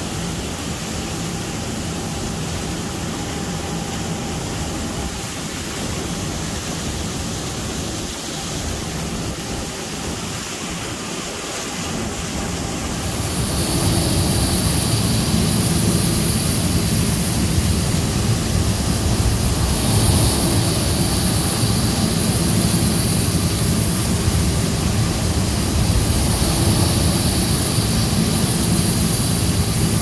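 New Holland CR9.90 combine harvester running steadily while harvesting corn, with engine and machinery noise. The noise grows louder about halfway through, with a high whine on top.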